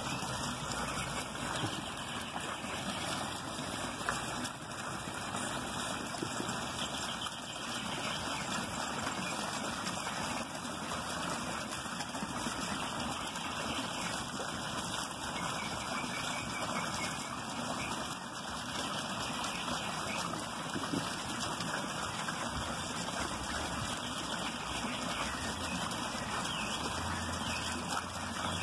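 Steady splashing and trickling of a small pond waterfall as water spills over a stone ledge into the pond below.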